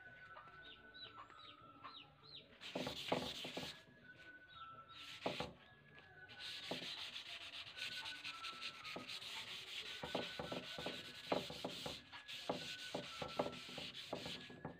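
Sandpaper rubbing over a wooden surface in short strokes: a brief spell about three seconds in, then steady sanding from about six seconds in.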